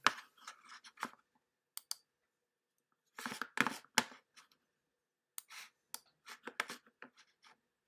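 Irregular small clicks and brief rustling handling noises at a computer, with a louder cluster about three to four seconds in and a run of separate clicks near the end.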